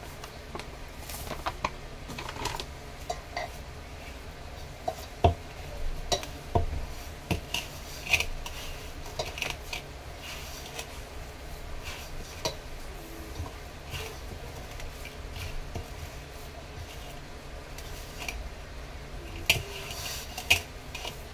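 Hands mixing and kneading a crumbly coconut and milk-powder dough in a stainless steel bowl, with irregular taps and clinks against the metal.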